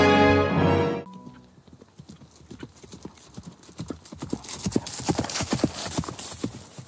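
Background music ends about a second in, then horse hooves clip-clop, growing louder as the horses approach.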